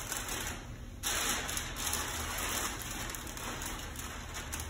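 Masking paper and tape being handled on a panel being prepared for paint: a dense crinkling rustle that gets louder about a second in and keeps up, unevenly.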